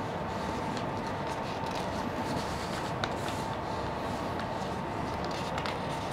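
A sheet of paper being folded and creased by hand, with faint rustles and a small tap about three seconds in, over a steady background hum.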